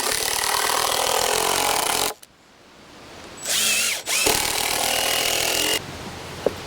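Cordless drill driving screws into 4x4 lumber in three runs: a long one stopping about two seconds in, then two shorter runs a little later, the motor pitch rising as it spins up.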